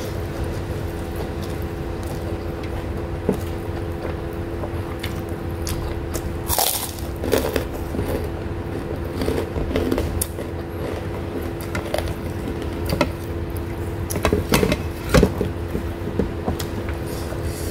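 Close-miked eating: chewing and wet mouth sounds with scattered clicks and smacks as rice, sea bass and vegetables are eaten by hand, over a steady low hum.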